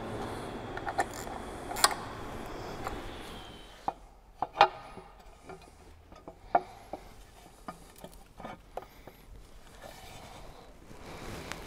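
Rubbing and handling noise, then scattered light clicks and knocks as a finned valve cover is worked down over an LS3 engine's coil packs. The cover catches on the coils and will not sit down into place.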